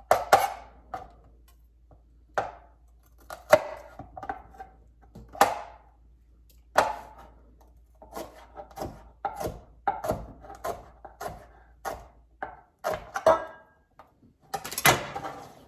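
Kitchen knife chopping vegetables on a cutting board: irregular sharp knocks of the blade hitting the board, some louder than others, with a quick run of chops near the end.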